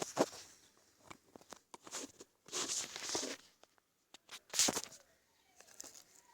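Slime being squished and pulled by hand: scattered sticky clicks and pops, with longer squelches about two and a half seconds in and again near the fifth second.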